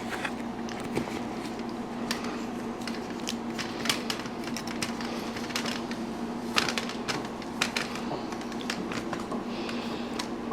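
Irregular clicks and taps of a camera being handled and fitted onto a tripod mount, over a steady hum.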